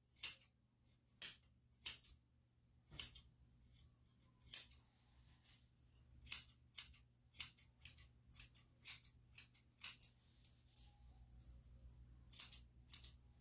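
Grooming scissors snipping the hair around a dog's paw: about two dozen quick, crisp snips in irregular runs, with a pause of about two seconds near the end.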